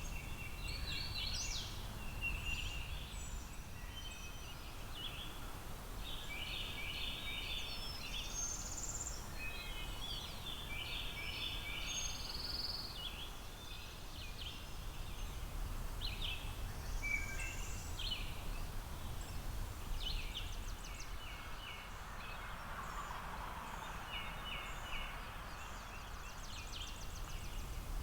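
Several wild birds calling and singing: many short, high-pitched chirps and quick runs of repeated notes, one after another, over a low steady rumble.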